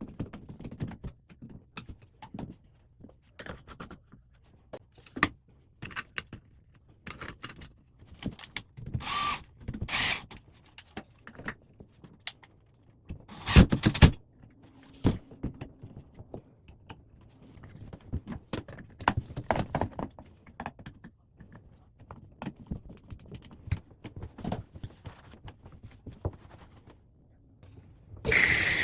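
Scattered clicks, clinks and knocks of metal parts and tools being handled during a bathtub faucet repair, with a louder cluster of knocks about halfway. Near the end a tap is turned on and water starts running.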